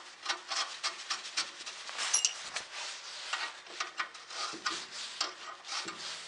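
Hands working at the top of a snowblower's auger worm-gear housing after it has been greased: a run of quick, irregular scrapes and clicks of metal handling.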